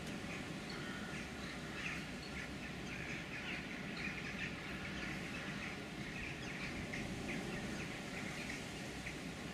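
A large flock of crow-family birds calling, many short overlapping calls without a break, over a steady low background rumble.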